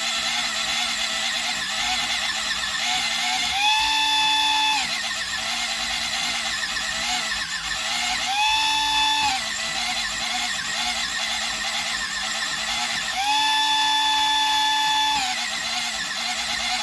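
Electric pencil sharpener's small motor and cutter running on a rigged-up power supply, a steady whine. Three times it steps up in pitch and grows louder for a second or two before settling back.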